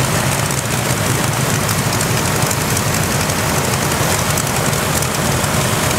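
Vintage piston aero engines, a Rolls-Royce Griffon V12 and a radial, running at steady speed on their display stands with propellers turning. The sound is a loud, even engine drone with a strong low rumble and a steady rush of air.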